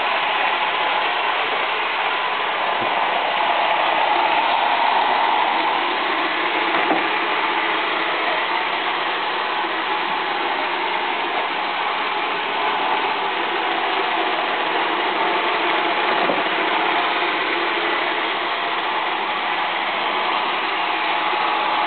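Roomba robot vacuum running: a steady whir from its vacuum motor and brushes, with a few light knocks.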